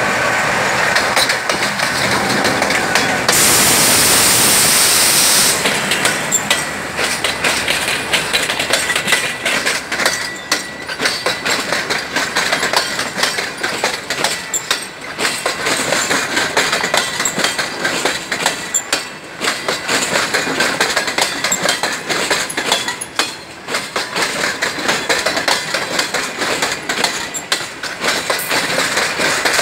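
Express train passing close by behind a GE U20C (GEU-20) diesel-electric locomotive, its coach wheels clicking steadily over the rail joints. About three seconds in, a loud rushing hiss lasts about two seconds.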